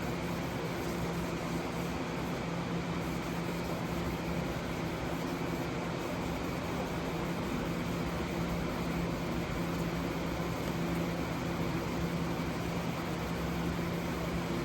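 Steady mechanical hum with a low tone and an even hiss, unchanging throughout, like a fan or other running machine in a small room.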